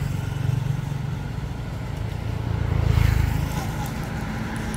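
Road traffic: a motor vehicle's low engine rumble, swelling about three seconds in as it passes.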